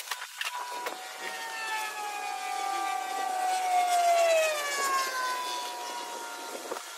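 A passing engine's whine with several overtones, slowly falling in pitch as it swells to its loudest about four seconds in and then fades. A few soft knocks and rustles from the rubber pond liner being handled near the start.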